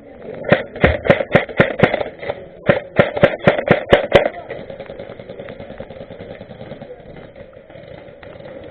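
Airsoft gun firing two quick strings of shots, about seven sharp pops each, roughly four a second, with a short pause between them.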